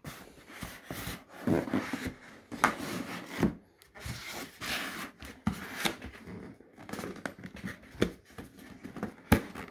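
Cardboard box being handled and turned over on a wooden table, with hands rubbing and scraping along the cardboard while feeling for a flap to open. Irregular knocks sound as the box is shifted on the tabletop, the sharpest one near the end.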